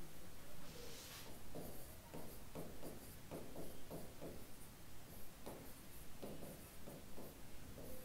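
Faint scratching and tapping of a stylus writing on an interactive whiteboard screen, in a run of short strokes.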